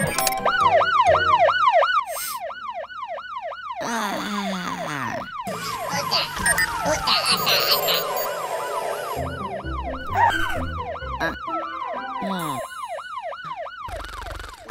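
Cartoon electronic siren, a fast warbling wail that rises and falls about three times a second. It breaks off about four seconds in for a stretch of jumbled noise and falling tones, then warbles again near the end.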